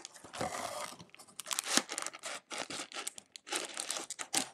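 Cellophane-wrapped trading-card packs crinkling and rustling against cardboard as they are pulled and tipped out of a cardboard box, in a quick, irregular run of crackles.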